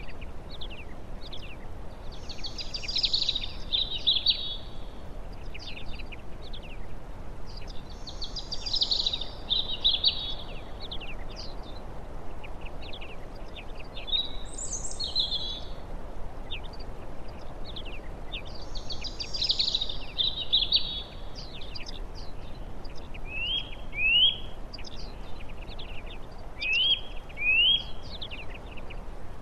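Wild songbirds singing: one song phrase comes back every five or six seconds, with short calls in between and a run of quick rising notes near the end. A steady hiss of outdoor background noise runs underneath.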